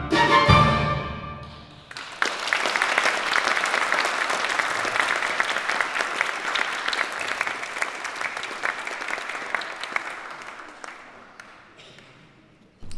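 A piece of music ends on a held chord that dies away in the first second or two, then an audience applauds; the clapping fades away over the last few seconds.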